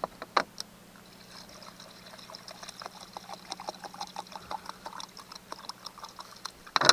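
Fresh water poured from a one-gallon jug to rinse hands, splashing in many small spatters. A brief loud burst of noise comes just before the end.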